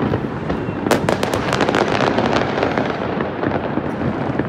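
Fireworks crackling: a dense run of rapid sharp pops starts about a second in and thins out after a couple of seconds, over a steady din of fireworks.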